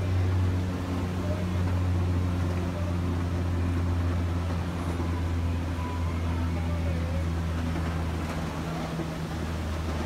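Steady low mechanical drone, a constant hum with no clear rise or fall.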